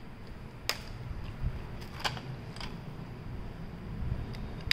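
Plastic Lego bricks of a brick-built toy safe clicking and clacking as it is picked up and handled, a few sharp clicks spaced out over the seconds.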